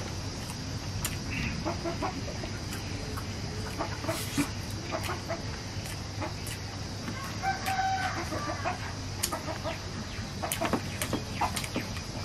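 Chickens clucking, with a rooster crowing once past the middle. Over this come the close sounds of someone eating fried fish and rice by hand: chewing and sharp lip smacks.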